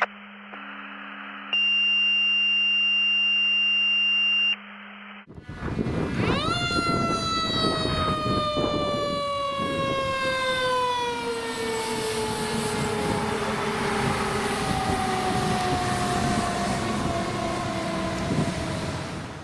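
Pierce fire engine passing with its siren wound up once and then slowly winding down in pitch, the pitch dropping further as it goes by, over the rumble of the truck's engine. Before it come a few seconds of flat, steady electronic intro tones.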